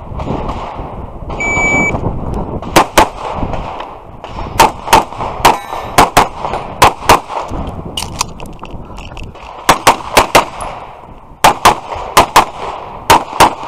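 Shot timer's start beep, a short high tone, then a rapid string of pistol shots, about twenty in all and mostly fired in quick pairs, with a short break in the middle.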